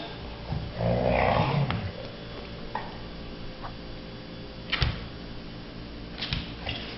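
A dog gives one short, rough vocal sound about a second in while two dogs contend over a rubber Kong toy on a hardwood floor, followed by a few sharp knocks later on.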